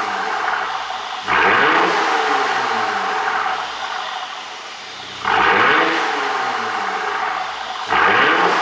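Mercedes-Benz S400's V6 engine and exhaust, running on a pop-sound ECU tune, revved hard three times while stationary. Each rev jumps up sharply in pitch and then falls back towards idle.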